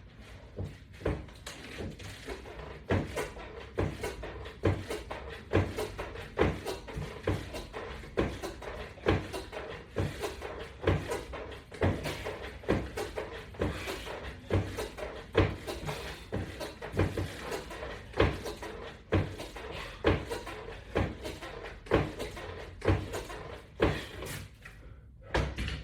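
Wooden resistance-band exercise equipment knocking in a steady rhythm, about one knock every 0.8 seconds, with each repetition of an exercise.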